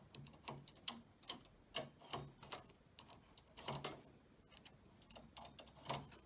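Faint, irregular clicks and taps of metal knitting-machine needles and a transfer tool as yarn floats are lifted and hooked back onto the needle bed.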